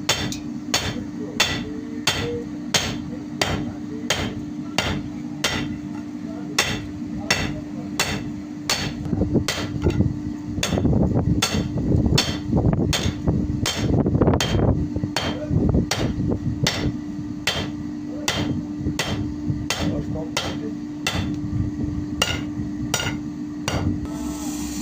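Hammer blows on iron at a steady rhythm, about one and a half strikes a second, over a steady motor hum, forging a kosh (iron plough point). The blows grow denser and louder in the middle stretch.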